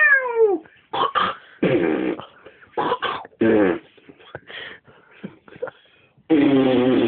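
A man imitating gunfire with his voice: a falling pitched 'pew' at the start, then a string of short mouth bursts, and near the end a long, gritty held buzz.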